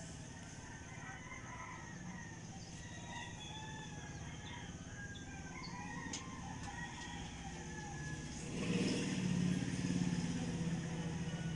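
Scattered bird calls over a steady low engine drone, which swells louder about eight and a half seconds in.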